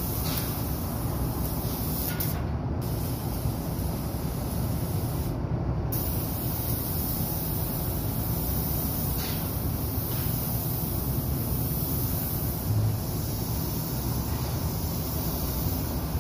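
Paint spray gun hissing steadily as it sprays paint onto a steel beam, over a steady low rumble. The hiss breaks off briefly twice in the first six seconds.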